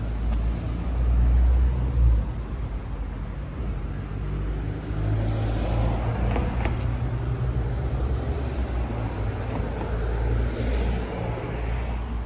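Street ambience with a car driving past: tyre and engine noise swells about five seconds in and fades away near the end, over a steady low rumble.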